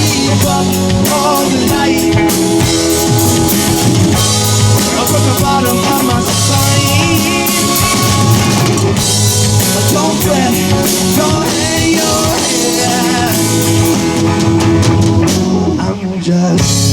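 Live rock band playing an instrumental passage with a drum kit, guitar and bass.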